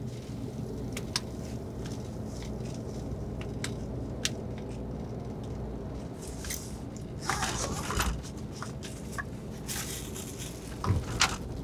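Steady low drone of a bus cabin on the move, with scattered clicks and crinkly rustling as a backpack and bags are handled, most of it in two bursts around the middle and near the end.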